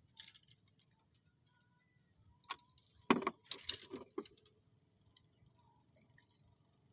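A brief clatter of small hard objects knocking together, a quick run of clicks and knocks lasting under two seconds about halfway through.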